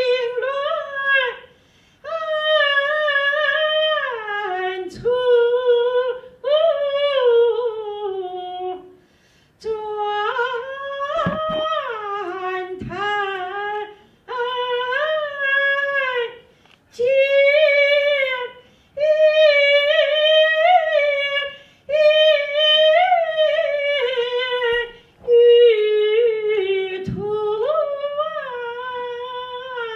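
A woman singing a Peking opera aria unaccompanied into a handheld microphone, in a high voice with long drawn-out notes that bend and waver. The phrases are broken by short pauses for breath.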